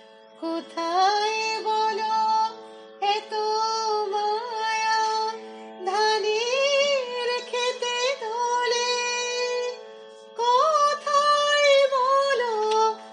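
A woman singing a slow song in long melodic phrases with short breaks, over a steady, sustained accompaniment drone.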